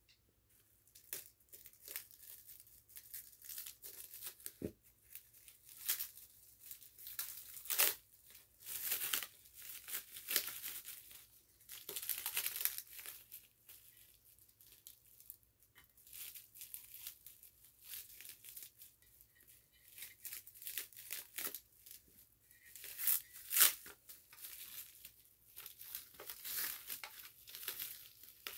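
Packaging being torn and crinkled by hand as a boxed smoke alarm is unwrapped, in irregular rustling bursts that begin about a second in.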